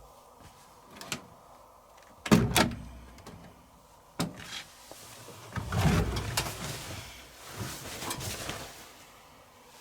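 Candy Aquamatic 100F front-loading washing machine door being unlatched and opened, with clicks and a loud double knock about two seconds in. Then rustling as the washed load is handled.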